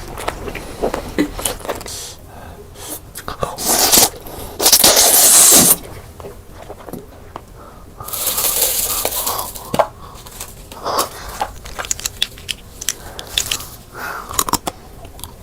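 Close-up eating sounds: crunchy bites, crackling and chewing, with scattered sharp cracks and two longer bursts of crunching about four and eight seconds in.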